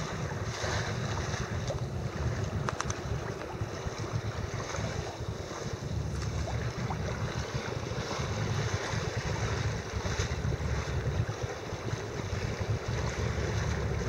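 Wind buffeting the microphone with a steady, gusting low rumble, over the wash and splash of choppy water around a boat.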